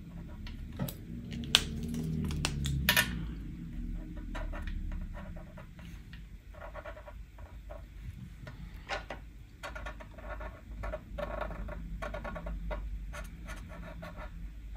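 Marker pens scratching in short strokes on small paper L plates as the letter L is drawn and outlined. A few sharp clicks come in the first three seconds.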